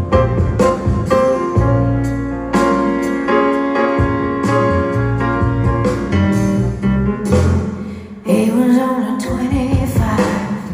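Live band playing a slow song on piano, electric guitars and bass, with a woman singing; her voice stands out most clearly near the end.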